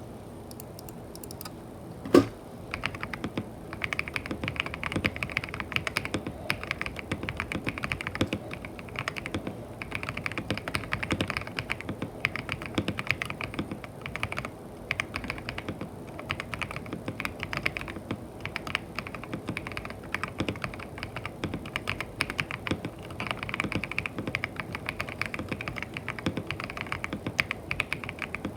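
Mechanical keyboard with KTT Strawberry switches being typed on: a single sharp knock about two seconds in, then fast, continuous keystrokes.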